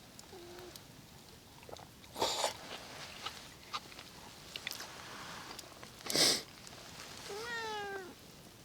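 A cat meowing, with a faint short mew near the start and one drawn-out, slightly falling meow about seven and a half seconds in. Two brief rustling noises come between them, the louder about six seconds in, with small clicks.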